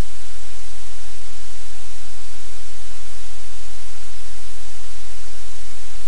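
Loud, steady hiss like static, with a low hum underneath, unchanging throughout.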